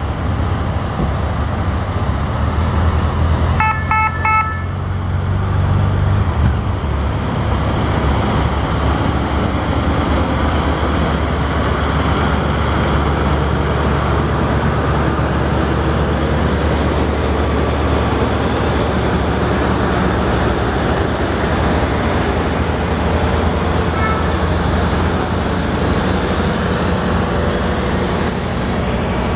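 Heavy-haul tractor unit and its long multi-axle trailer rolling past close by: a steady low engine and tyre rumble. A short horn sounds about four seconds in.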